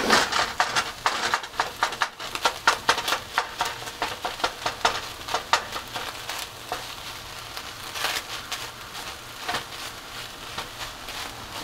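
Wooden spatula chopping cooked sweet potato into ground turkey in a nonstick frying pan: quick repeated taps and scrapes against the pan, coming fast for the first several seconds and sparser after. Under them the meat sizzles steadily.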